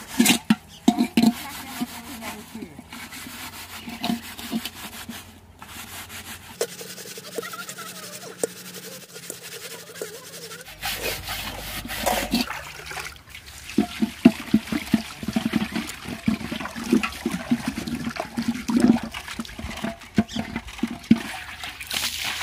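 A metal cooking pot being scrubbed by hand with water: uneven rubbing and scraping strokes on the metal, with water sloshing in the pot. Near the end the water is poured out of the pot in a splash.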